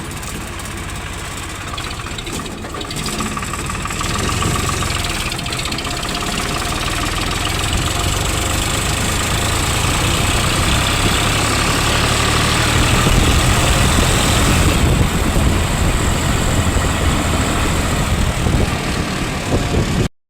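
Excavator's diesel engine running steadily, growing louder over the first dozen or so seconds. It cuts out abruptly near the end.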